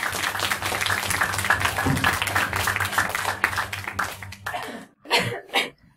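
Audience applauding, a dense patter of clapping that dies away about four and a half seconds in. A few short sharp sounds follow near the end.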